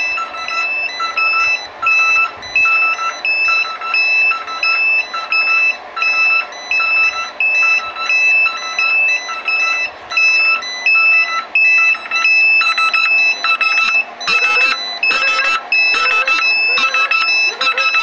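Alarm buzzer on a steam boiler's control panel beeping in a steady repeating pattern, about one and a half shrill beeps a second.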